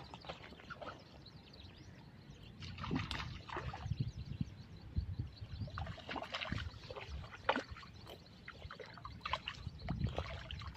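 Irregular splashing and sloshing of water, a series of short uneven splashes over a low rumble.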